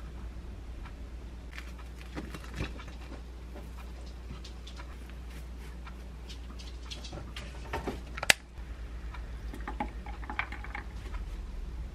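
Small kitchen handling sounds of a sandwich being plated on a ceramic plate and a glass of iced coffee being set beside it: soft taps and rustles, with one sharp click about eight seconds in, over a low steady hum.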